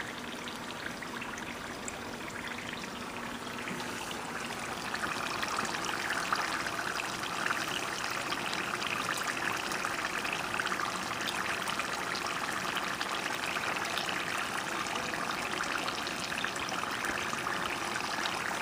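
Egg rolls deep-frying in hot oil in a pan: a steady sizzle of bubbling oil, growing louder about five seconds in.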